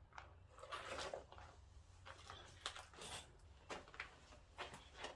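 Faint, irregular footsteps crunching and scuffing over debris on the floor.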